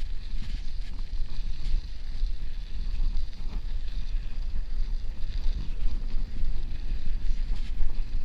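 Wind buffeting the microphone of a camera on a moving bicycle, a steady low rumble, with the hiss of the tyres rolling over packed snow.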